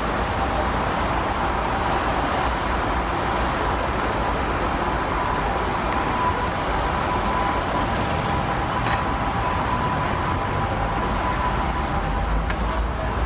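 Steady city street traffic noise: road vehicles passing, with a faint steady high whine through most of the middle.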